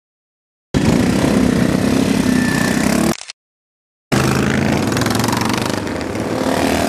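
Motorcycle engines running loud in two clips, each starting and stopping abruptly with a second of dead silence between them. In the second clip, motorcycles ride up and pass close by.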